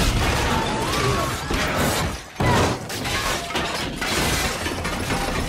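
Film sound effects of a train carriage crashing: glass shattering and metal crashing amid a dense, continuous din. The noise drops out briefly about two seconds in and comes back with a sudden loud crash.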